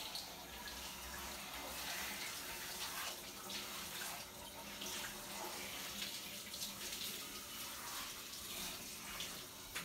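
Handheld shower sprayer running water over a dog's fur in a bathtub, a steady hiss of spray.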